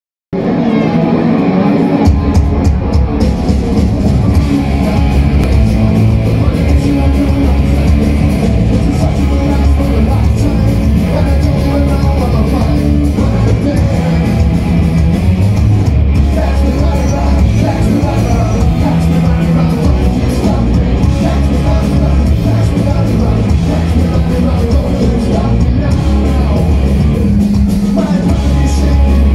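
Live punk rock band playing loud through the PA: distorted electric guitars, bass and drums with a sung vocal, heard from within the audience. The sound starts abruptly just after the beginning and stays loud throughout.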